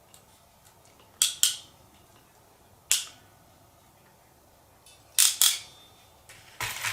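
Sharp metal tool clicks and snaps from fitting connectors onto battery cable leads, mostly in pairs about a quarter second apart, with a short rustle near the end.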